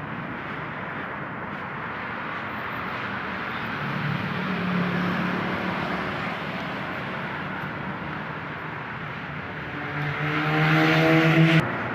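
Road traffic: a steady wash of passing vehicles, with one vehicle's engine passing close and growing louder near the end before cutting off suddenly.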